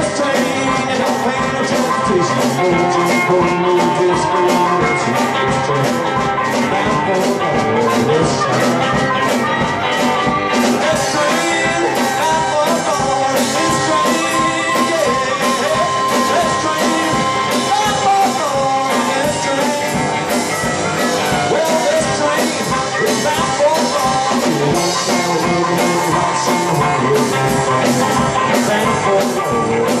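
Live blues band playing: harmonica over a hollow-body electric guitar and drum kit, with a steady beat throughout.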